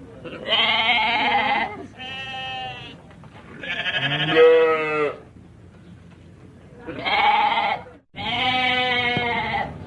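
Sheep bleating: five separate drawn-out baas of about a second each, some with a wavering quaver, three in quick succession and then two more after a pause of about two seconds.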